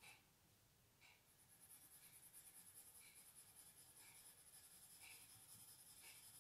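Pencil scratching on crayon-coated paper in quick short strokes. It is faint and settles into a steady rapid scratching about a second in.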